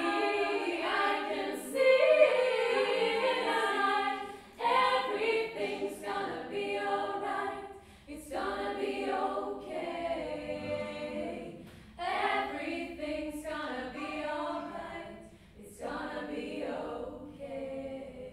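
A women's choir of eight voices singing a cappella in close harmony. Phrases start again every three to four seconds, and the last sung note dies away near the end.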